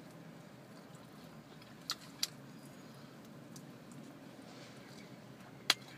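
Quiet eating of fried chicken wings from a plastic deli plate: a few short sharp clicks, two close together about two seconds in and a louder one near the end, over a low steady hum.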